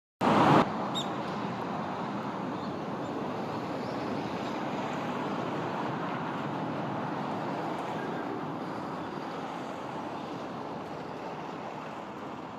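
Steady rushing outdoor ambient noise with no distinct events, louder for a short burst in the first half-second.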